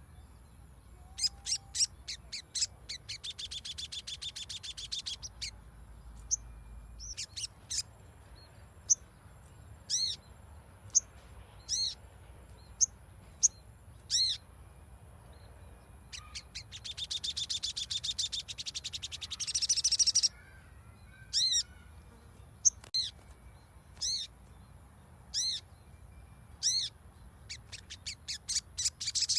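Sogon (sogok ontong) songbird calling: single sharp high chirps about a second apart, broken twice by long, fast, buzzy chattering trills, one early and one after the middle. A thin steady high whine runs underneath.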